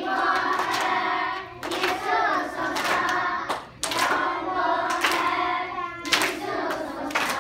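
Group of children singing a song together in unison, with sharp claps every two seconds or so.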